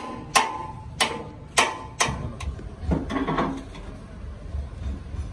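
Sharp metal-on-metal taps on the welded steel plate of an excavator boom, about one every half second for the first two and a half seconds, each with a short ring, followed by a brief clatter.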